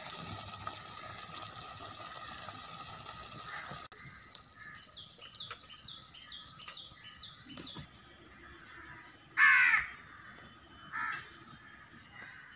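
A crow cawing: one loud caw about two-thirds of the way in and a shorter one a second and a half later, with quick small-bird chirps just before. It opens with a steady hiss that stops abruptly about four seconds in.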